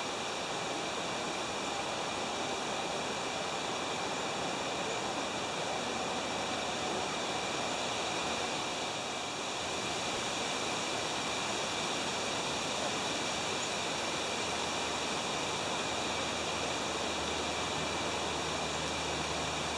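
Steady, even outdoor hiss with no distinct events, and a faint low hum coming in near the end.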